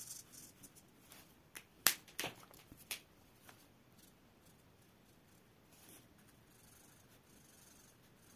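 Felt-tip marker scratching over paper, with a handful of sharp clicks, the loudest about two seconds in, after which the strokes are barely audible.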